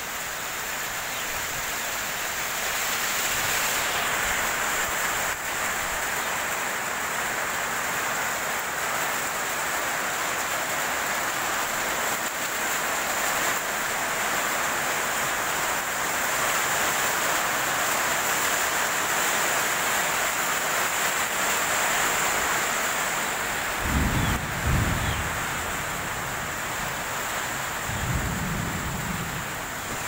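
Steady rain falling in a gusty wind, an even dense hiss throughout. Near the end come two low rumbles a few seconds apart.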